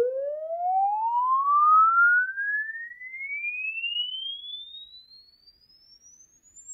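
Philips 6.5-inch car subwoofer from a BMW Z4's Sunfire-designed system playing a sine-wave frequency sweep: a single pure tone rising steadily from a mid pitch to a high whistle, growing fainter as it climbs. The driver carries the sweep well up into the treble, a pretty wide frequency range for a subwoofer.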